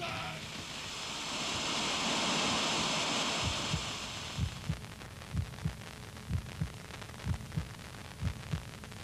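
A loud hiss of static-like noise fades out about four seconds in, and a slow recorded heartbeat takes over: deep paired thumps about once a second. This is the unborn baby's heartbeat that opens the album.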